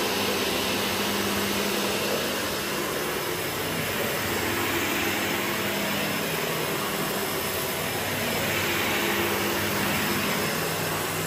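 Hoover HL4 upright vacuum cleaner running on maximum suction in carpet mode while its powered brush head is pushed over carpet: a steady rush of air with a low hum, swelling gently as the machine moves.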